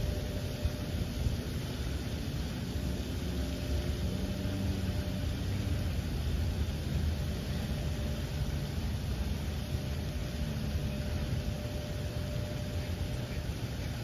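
Steady outdoor background noise: a low, fluttering rumble under an even hiss, with a faint steady hum. Nothing stands out.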